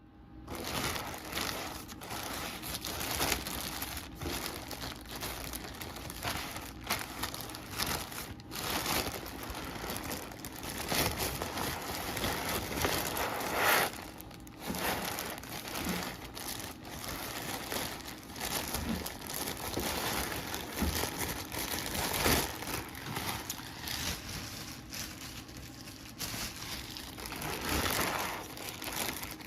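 Parcel packaging crinkling and rustling as it is handled and opened by hand, with irregular crackles throughout.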